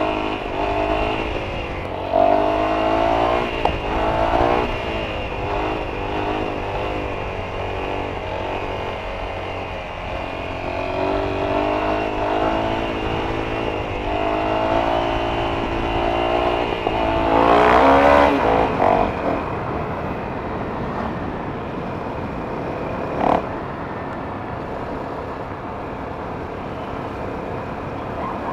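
Honda CRF250L's single-cylinder four-stroke engine under way, its pitch rising and falling as the bike accelerates and the throttle eases. The strongest run-up comes about two-thirds through. A single sharp click follows a few seconds later.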